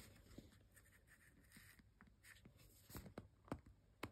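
Faint rustling and a few soft taps from fingers handling and squeezing a plastic tube of general-purpose glue, with the taps bunched near the end.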